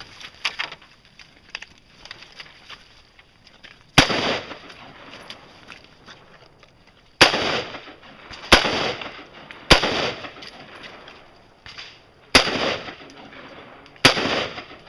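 Six gunshots at an uneven pace, one to three seconds apart, each followed by a short echoing tail.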